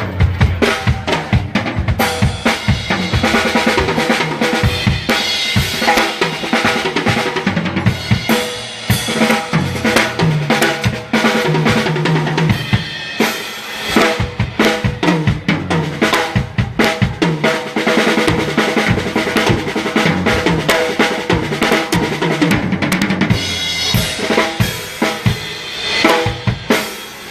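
Drum kit played continuously for a sound check, kick drum and snare in a steady groove with rimshots.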